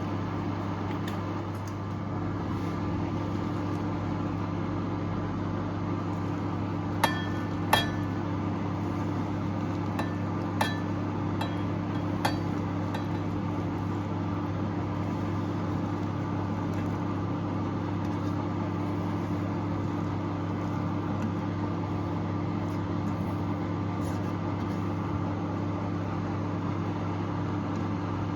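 A steady low mechanical hum, with a few sharp clinks of kitchenware, glass or metal, about a quarter to halfway through.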